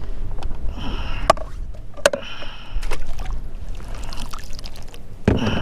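Water splashing and trickling as a plastic fish-measuring board is dipped and rinsed over the side of a kayak, with a few sharp knocks in between.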